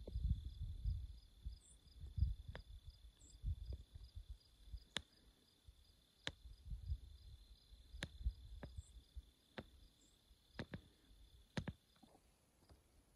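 Faint high-pitched insect trill, with a soft chirp repeating about twice a second; the steady part of the trill stops near the end. Scattered sharp clicks and low rumbling sound over it.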